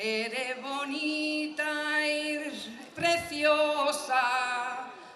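Male and female voices singing a devotional song to the Virgin together, with long held notes that waver in vibrato.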